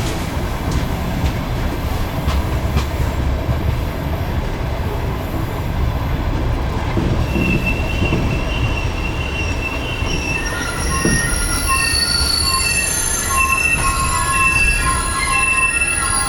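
Passenger train coaches rolling by with a steady low rumble. From about seven seconds in, high squealing tones start up and come and go from the wheels and brakes as the train slows into the station.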